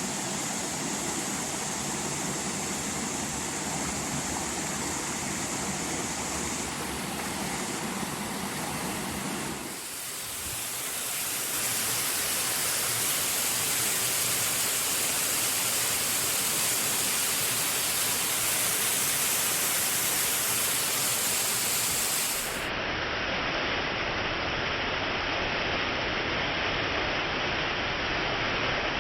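Waterfall water falling onto rock and sheeting down a sloping rock face, a steady rushing. The sound shifts abruptly twice, about a third of the way in and again later, when the top end goes dull.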